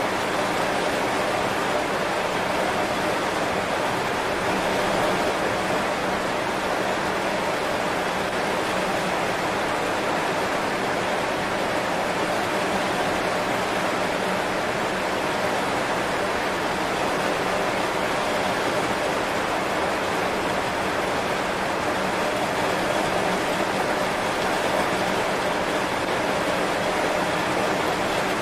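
Heavy rain falling on banana leaves, a steady even hiss with no single drops standing out.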